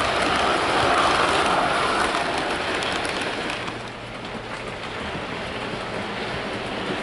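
Model railway coaches running past close by on OO gauge track: a steady rushing rattle of wheels on rail that drops away about four seconds in, leaving a quieter distant running noise with a faint low hum.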